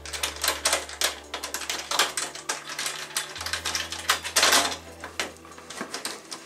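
Rapid, irregular clicking and tapping of metal parts as a mounting pole is fitted and screwed onto a solar street light's metal fixture, with a louder scrape about two-thirds of the way through.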